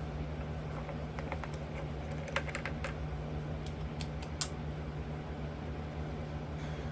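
Small metal motorcycle parts clinking and tapping together as they are handled, a scattered run of light clicks with a brief high ring, one sharper clink about four and a half seconds in. A steady low hum runs underneath.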